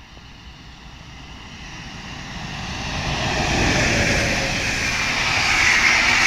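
Electric-hauled passenger train passing close by: its wheels roll along the rails in a rushing noise that grows louder over the first three or four seconds and stays loud as the coaches go past.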